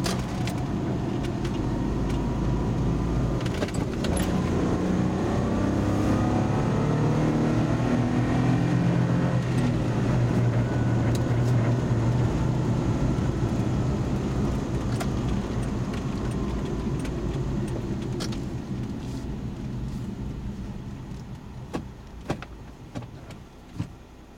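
Car engine and road noise heard from inside the cabin. The engine rises in pitch as the car speeds up over the first ten seconds or so, holds steady while cruising, then dies down as the car slows to a stop. A few light clicks come near the end.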